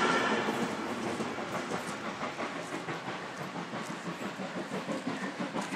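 Steam-hauled passenger train receding after its last coach has passed: rolling wheels and rail clatter fading over the first couple of seconds, then going on more faintly as the train moves away up the grade.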